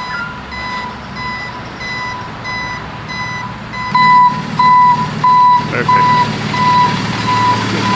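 A truck's reverse alarm beeping about one and a half times a second as the truck backs up, over the low running of its engine. The beeps and the engine get louder about four seconds in.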